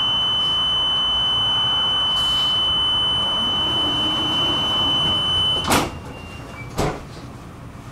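Tram door-closing warning: a steady high tone held for about six seconds that cuts off, followed by two knocks about a second apart as the doors shut.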